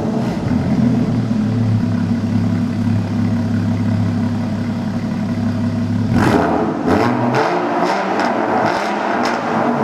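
Porsche flat-six engine through a straight-pipe exhaust, running at a steady idle, then from about six seconds in blipped several times, the pitch rising and falling with each rev.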